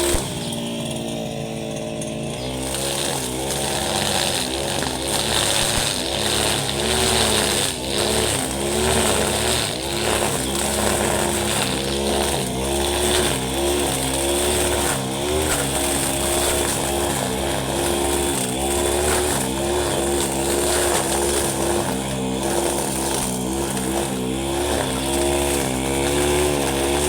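Husqvarna 532RBS backpack brush cutter's two-stroke engine running at low throttle, its speed wavering up and down.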